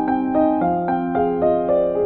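Background music: a soft keyboard melody, with notes struck about four times a second over held lower notes.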